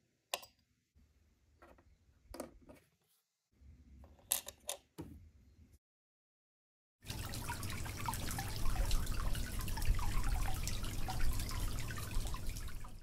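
A few light clicks of small plastic kitchen pieces set down in a toy sink, then, about seven seconds in, a dollhouse kitchen's working miniature faucet starts running water steadily into the sink.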